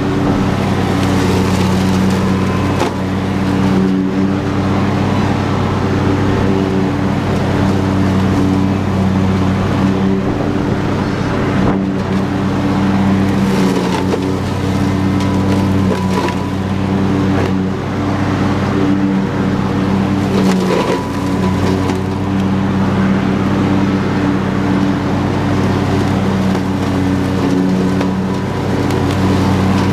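Husqvarna YTH22V46 lawn tractor's V-twin engine running steadily under load while its mower deck cuts tall grass and brush, with a few brief knocks.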